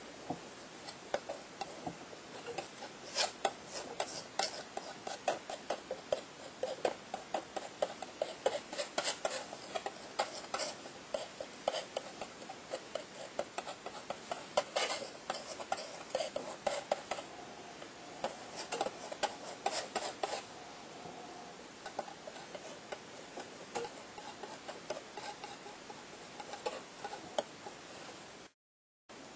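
Palette knife dabbing and scraping thick paint onto a painting board: quick, irregular light taps and scrapes, busiest through the first two-thirds and sparser later, with the sound breaking off for a moment near the end.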